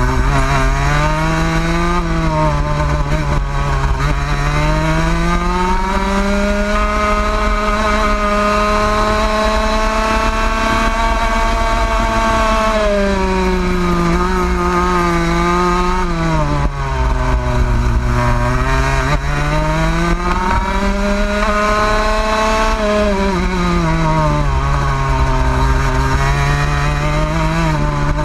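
Rotax Max 125cc two-stroke kart engine heard from onboard, its pitch climbing as it revs out on the straights and dropping off for the corners several times: rising over the first few seconds, holding high, falling about halfway, then climbing and falling again.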